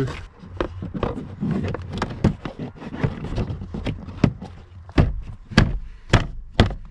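Plastic dash trim cover being hooked in and pressed into place in a car's interior: a run of light clicks and knocks, with a few sharper snaps about five to six seconds in.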